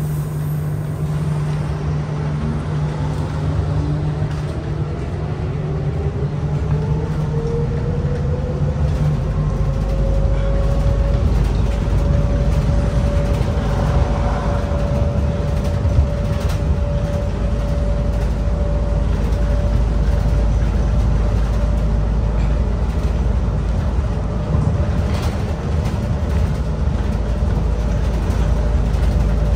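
Adtranz C801 light-rail car heard from inside the cabin: its motor whine rises steadily in pitch for about ten seconds as the train gathers speed, then holds level at cruising speed. Beneath it the running rumble grows louder, with a few faint clicks.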